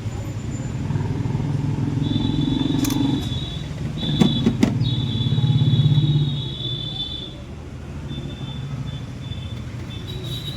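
Small car engine running, revved up twice, with a thin high-pitched squeal over it during the revs and a few sharp clicks in the middle.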